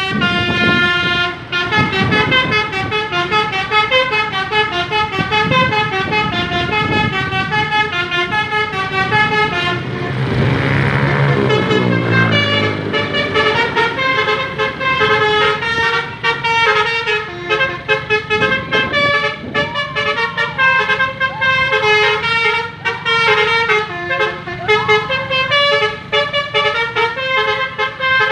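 Basuri multi-tone telolet horn on a bus playing a fast, repeating melody in koplo style, its notes stepping up and down without a break. About ten seconds in a hiss and a low falling sound rise briefly under the horn.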